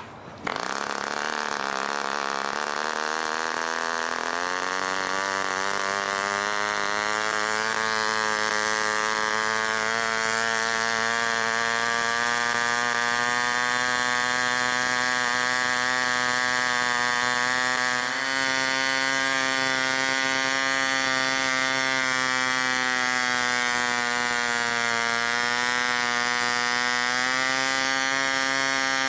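1946 Ohlsson & Rice 23 spark-ignition two-stroke model engine, swinging a wooden 10x5 propeller, catching from a hand flick and running up to a steady high-pitched buzz at about 7,000 to 7,500 RPM. The pitch climbs over the first few seconds as it speeds up, then holds, with a brief dip about eighteen seconds in.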